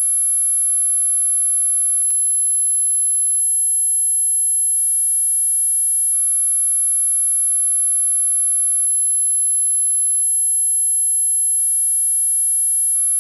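Dog whistle sound effect: a steady, very high-pitched whistle tone held without a break, with faint clicks about every second and a half.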